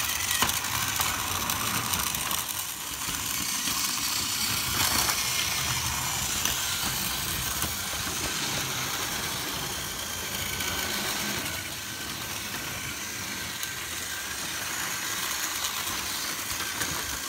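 Several battery-powered Tomy Plarail toy trains running together on plastic track: a steady whirring of their small motors and gearboxes.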